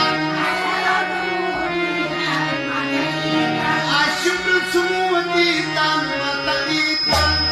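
Dance music with a melody and steady percussion. Near the end it switches abruptly to a different track with a heavy, pulsing bass beat.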